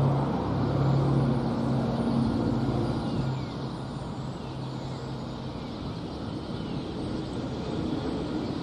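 Diesel-electric locomotive approaching from a distance: a low, steady engine drone that fades about halfway through, then a rumble that builds again near the end as it draws closer.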